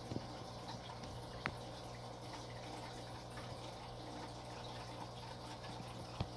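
Aquarium filter and pump running: a steady low hum under a constant trickle of water, with a couple of faint sharp clicks, one about a second and a half in and one near the end.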